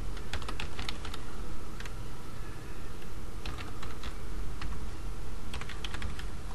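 Typing on a computer keyboard: quick runs of keystrokes with a pause of about a second near the middle, over a steady low background hum.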